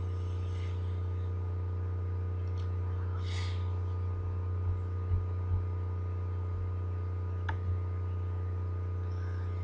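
Steady low electrical hum with a few fainter steady tones above it, under a quiet room. A brief soft hiss comes a few seconds in, a few small knocks follow, and a single sharp mouse click sounds about three-quarters of the way through.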